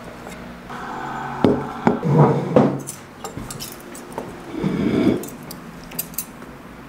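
Kitchenware being handled: several sharp knocks and clatters, with a brief steady tone about a second in.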